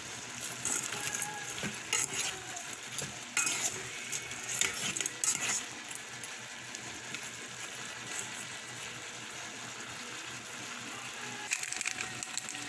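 Shrimp sizzling in the inner pot of a rice cooker while a spoon stirs them, with scattered clinks and scrapes of the spoon against the pot, mostly in the first half.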